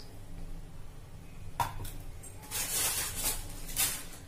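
Wooden spatula stirring thin curry in a clay pot, with a light knock about a second and a half in and a few short swishing splashes of liquid after it.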